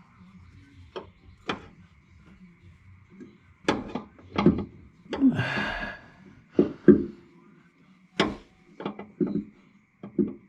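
Hand-fitting a hydraulic return filter part: a series of sharp knocks and clicks from the part being worked onto its fitting. There is a brief scraping rustle about five seconds in.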